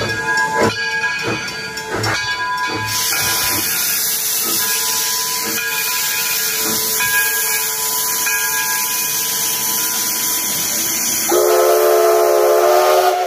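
Steam locomotive's bell ringing, a stroke about every two-thirds of a second, as the 4-4-0 engine starts off. About three seconds in, a loud hiss of steam from the open cylinder cocks begins and keeps on. Near the end the steam whistle sounds one loud chord-like blast, the departure signal.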